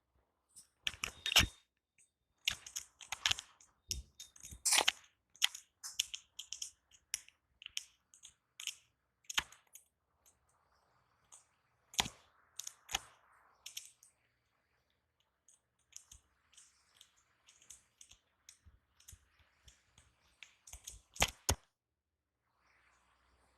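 Barber's hands working a head massage: sharp, irregular slaps, claps and finger snaps, thickest in the first few seconds and again near the end, with stretches of soft rubbing on skin and hair in between.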